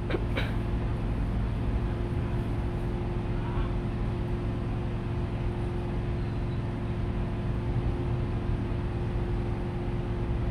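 Steady mechanical droning hum with a constant tone running through it, and a couple of light clicks right at the start.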